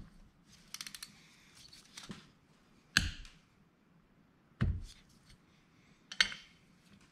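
Torque wrench on the cylinder head bolts of a 168F small diesel, tightening them in stages in a crisscross pattern: a quick run of ratchet clicks about a second in, then a few separate sharp metallic clicks, the loudest about three seconds in, and a duller knock a little after the middle.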